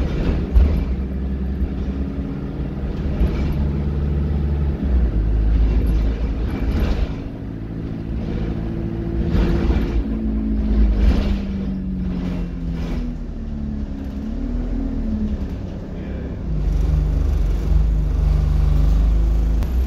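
Alexander Dennis Enviro200 single-deck bus under way, heard from inside the saloon: diesel engine and Allison automatic gearbox whining, the pitch rising and falling as it moves through the gears, over a steady low rumble with a few knocks from the body.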